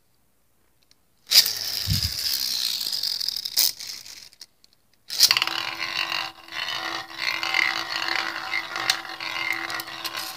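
A Victory Valkyrie Beyblade Burst top, its driver tip worn down, is ripped from its launcher about a second in and spins across a glass pot-lid stadium with a whirring scrape. After a short silence halfway through it is heard spinning again, a steady whir with a held hum.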